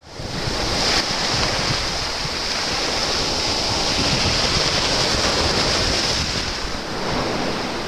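Small waves breaking and washing up on a beach, with wind noise on the microphone.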